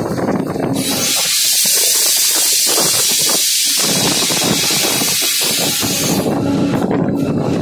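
Compressed air hissing loudly from the air brake system in the cab of a Pakistan Railways RGE-20 diesel locomotive, starting about a second in and cutting off about six seconds in. The locomotive's diesel engine drones steadily underneath.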